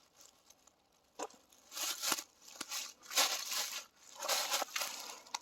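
Footsteps crunching and rustling through dry brush and debris: a few separate steps about a second apart, with a couple of sharp snaps in between.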